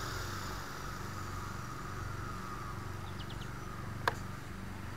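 Blade 130X micro RC helicopter's rotor winding down on the ground: a faint whine falls in pitch and fades over the first few seconds, over a steady low hum. A single sharp click about four seconds in.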